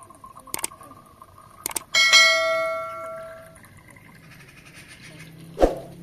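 A glass bottle and a vacuum flask clinking together: two light clicks, then about two seconds in a sharp clink that rings out like a small bell and fades over a second or so. A dull knock near the end.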